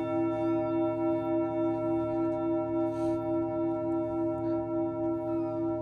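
Sustained bell-like ringing drone of several steady tones held together, its strongest low tone pulsing evenly about three times a second.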